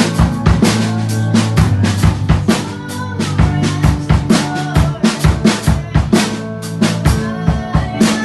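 Drum kit played fast with kick, snare and cymbal hits over sustained keyboard chords and bass notes.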